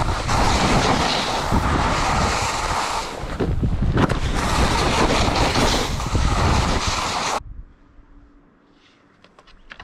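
Skis scraping and carving down firm spring snow, with wind rushing over the microphone at speed. The noise cuts off abruptly about seven seconds in as the skier stops, leaving a much quieter stretch.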